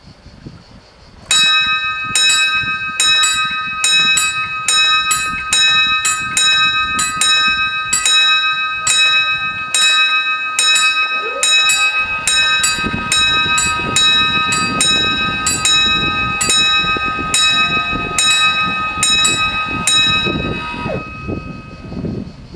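Two level-crossing warning bells ringing in rapid repeated strokes, starting about a second in. About halfway through, a motor whine rises in pitch and then holds steady: the barrier drives lowering the booms. Bells and whine stop together near the end.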